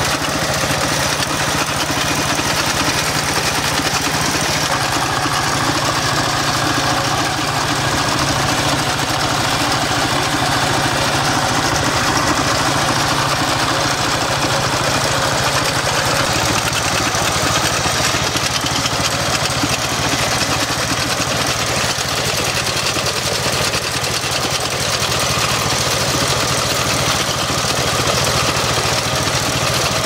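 Diesel engine of a Kentavr MB 1010DE-6 walk-behind tractor running steadily while it pulls a shaker-type potato digger, with the digger's vibrating riddle rattling as dry soil sifts through it. The engine note drops slightly about halfway through.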